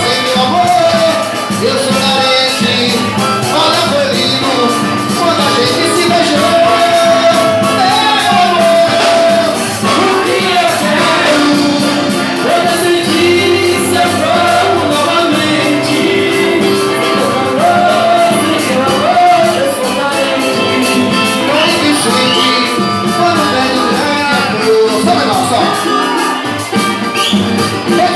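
Live band playing Latin-style music, with a wavering melody line over steady percussion.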